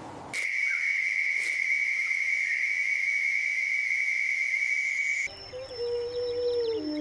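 A steady, high-pitched whistling tone starts abruptly just after the beginning and cuts off suddenly about five seconds in. Soft music with a falling note follows near the end.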